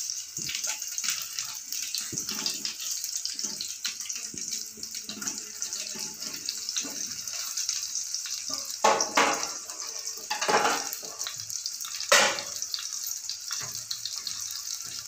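Chicken tikki kababs shallow-frying in oil in a pan, a steady sizzle with fine crackling, cooking through on a low flame. A few louder rushes of noise come through the middle of it.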